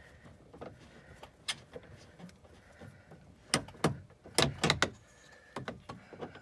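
Scattered sharp clicks and light knocks from a nut driver and Torx screw working against the plastic trim of a Crown Victoria's rear interior door handle as the screw is backed out. The clicks are faint at first, then come louder in a quick cluster a little past the middle, with one more near the end.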